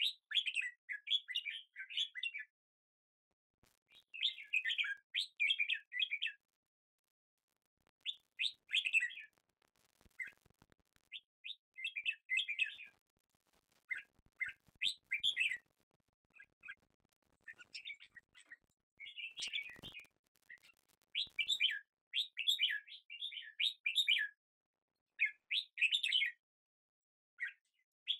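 Small birds chirping in repeated bursts of quick, high chirps, each lasting a second or two, with short pauses between.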